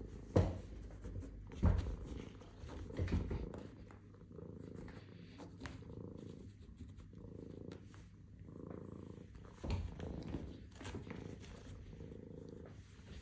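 Domestic cat purring steadily, with a few soft knocks and rustles as it paws at the woven fabric of the chair back.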